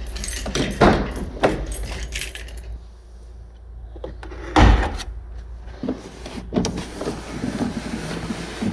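Jangling and clicking of handled metal objects, with a few knocks and one heavy thump about halfway through.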